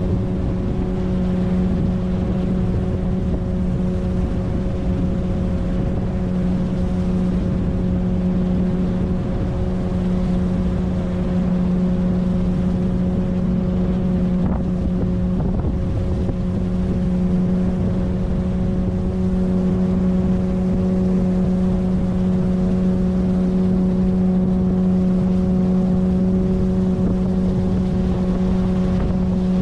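A 9.8 hp outboard motor running at a steady, unchanging speed, pushing an inflatable PVC boat along: a constant low hum with a rushing noise underneath.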